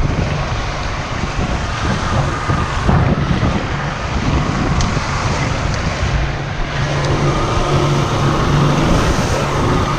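Boat engine running at trolling speed with a steady low hum, water rushing past the hull and wind buffeting the microphone.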